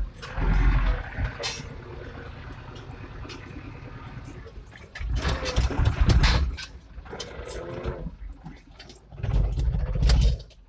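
Farm tractor engine running as the tractor drives over rough ground, heard from inside the cab. It gets louder three times: about a second in, around five to six seconds, and near the end. It drops away sharply at the very end.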